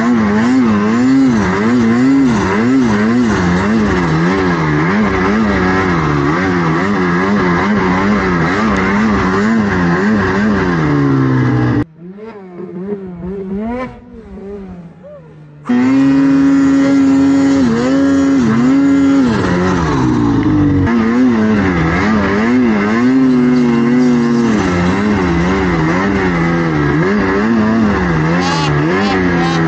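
Mountain snowmobile engine revving up and down again and again as the sled works through deep powder, heard close from the rider's seat. About twelve seconds in it drops for a few seconds to a fainter, more distant engine, then comes back loud and keeps revving.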